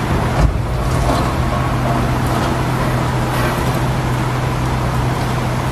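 Wheel loader's diesel engine running with a steady low hum as the machine drives.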